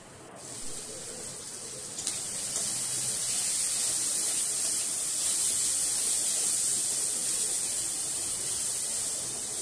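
Marinated chicken pieces sizzling as they fry in hot oil in a kadai: a steady hiss that grows louder about two seconds in.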